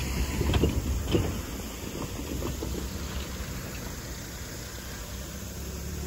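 Low rumble of passing road traffic, with a few knocks in the first second or so, then a steadier rumble.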